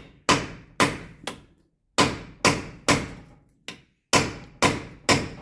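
Lump hammer striking the front hub assembly of a Land Rover Discovery 2 in repeated heavy metal-on-metal blows, about two a second, with two short pauses between runs of strikes. The hammering is slowly cracking something stuck on the hub loose.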